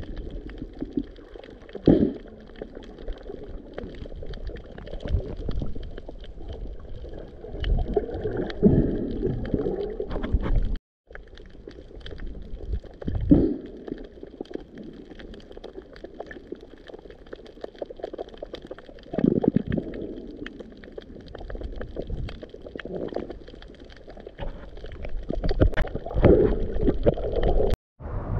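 Underwater sound of a coral reef picked up by a GoPro's bare microphone: a constant crackle of small clicks, which the diver takes for fish or corals communicating, broken every few seconds by low gurgling surges of water against the microphone.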